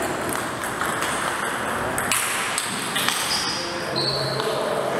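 Table tennis ball struck by bats and bouncing on the table, light ringing pings over a steady hiss of room noise.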